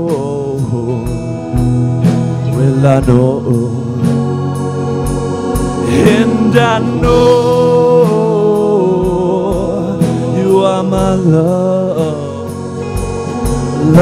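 Live rock band playing: a man singing lead over a Gibson electric guitar and a steady drum beat.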